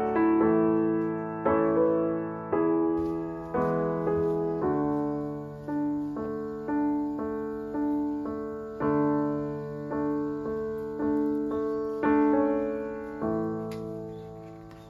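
Background piano music: slow single notes and chords, each struck and left to fade, thinning out near the end.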